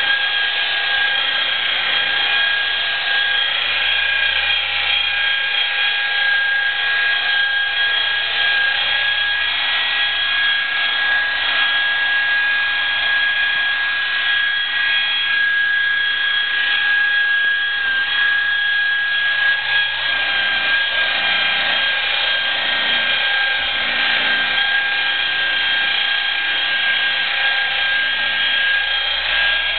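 Electric rotary polisher with a wool pad running with a steady motor whine as it cuts rubbing compound into sanded car paint.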